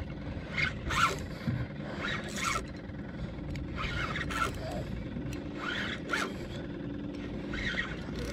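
Spinning fishing reel worked under load against a hooked lemon shark, giving a string of short, uneven rasps.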